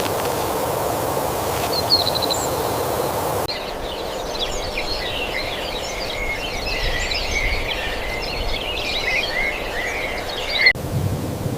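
A steady rushing noise with a few short bird chirps, then after a sudden cut a dense chorus of many quick, high bird chirps and twitters that stops abruptly near the end.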